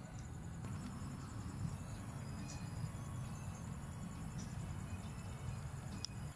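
Crickets chirping: a steady high trill with a faster pulsing line above it, over a low rumble, with a few faint ticks.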